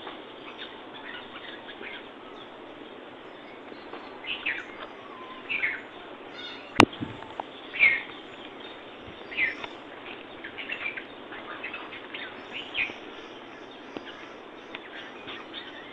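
Birds chirping, a series of short high chirps every second or so over a steady background hiss. One sharp click about seven seconds in is the loudest sound.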